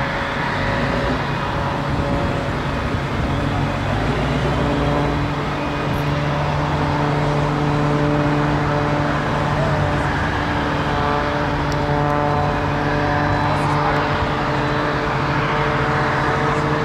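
Aircraft engine droning overhead, a steady hum whose pitch shifts slightly.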